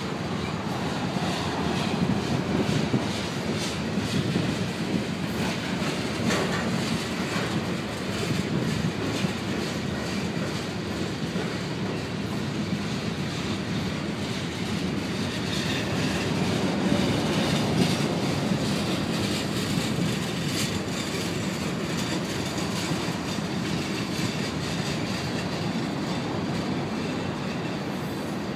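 Freight cars of a long mixed train rolling slowly past on steel wheels: a steady rumble with scattered clicks and clanks as the wheels pass over the rail joints.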